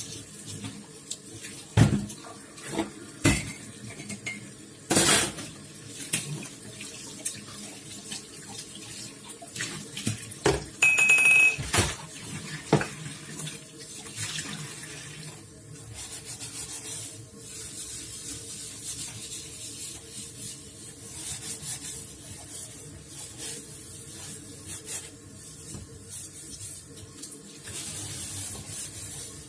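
Tap water running into a sink while dishes are washed, with scattered clinks of dishes and a brief high squeak about eleven seconds in.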